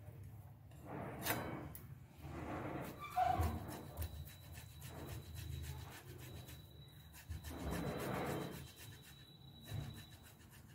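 Boiled potato being grated on a metal hand grater and crumbled by hand in a steel bowl: a few bursts of soft rubbing strokes.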